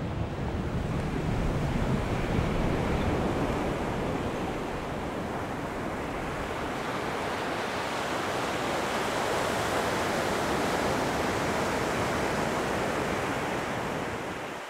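Ocean surf breaking and washing up a sandy beach, a steady rush of waves that swells a little midway and fades out near the end.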